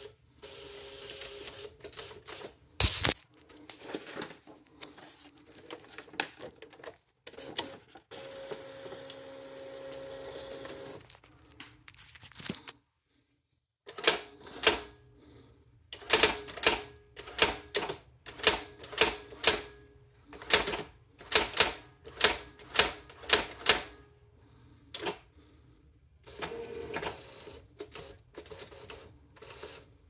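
Brother GX-6750 electronic daisy-wheel typewriter: first its motors whir and click as the paper is fed in, then the print wheel strikes characters one at a time, about two a second, as text is typed, followed by a short whir and click of the carriage moving.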